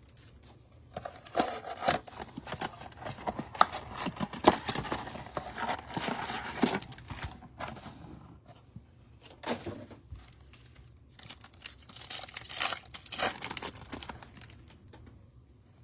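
Wrapping being torn and crinkled as a trading-card blaster box and its packs are opened. Rustling comes in irregular stretches with sharp clicks, busiest in the first half and again near the end.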